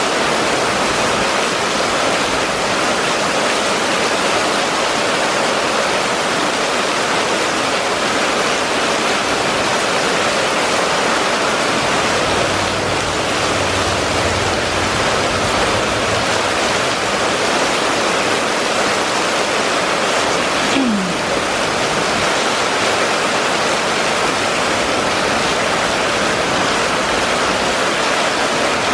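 Heavy rain pouring onto a street: a steady dense hiss of drops splashing on wet asphalt and puddled runoff. A brief falling squeak sounds once, about two-thirds of the way through.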